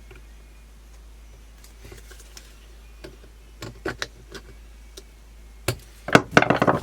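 A thin screwdriver or scraper clicking and scraping in the slot of a rifle screw while gunk is worked out, ending in a louder stretch of rapid scraping and rattling near the end.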